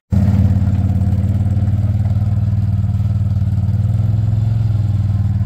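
ATV (quad bike) engine running steadily at a low, even pitch as it tows a trailer loaded with a shot moose over rough forest ground.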